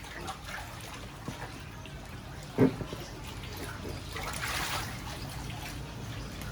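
Water splashing and trickling in a child's inflatable swimming pool, with one sharp louder slap about two and a half seconds in and a brief hissing splash a little after the middle.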